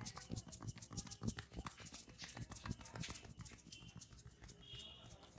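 Massage hand slaps and taps on skin, an irregular patter of sharp strikes several a second.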